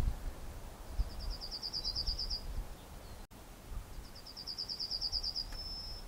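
Yellowhammer singing twice: each song is a fast run of repeated high notes, and the second ends in a longer drawn-out note. Wind rumbles on the microphone underneath.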